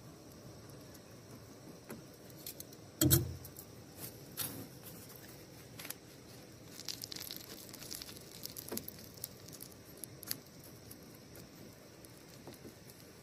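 A stick scraping and dabbing sticky tree sap into a hole in a canoe hull, making scattered small clicks and scratches. There is one sharp knock about three seconds in, and a busier run of fine scratchy crackling around seven to eight seconds.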